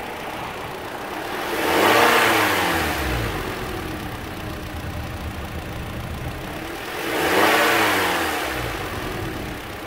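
2018 Toyota C-HR's 2.0-litre four-cylinder engine idling and revved twice, about five seconds apart; each rev rises and falls back to idle.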